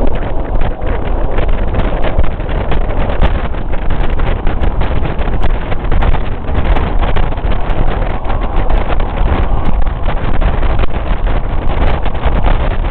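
Loud wind rushing and buffeting over the microphone at an open window of a fast-moving train, over the steady low rumble of the train running on the rails.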